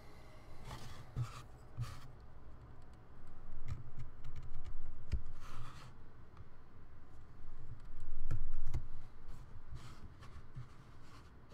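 Woodcut carving gouge cutting into a woodblock: irregular short scraping strokes, with light knocks from the tool and block being handled.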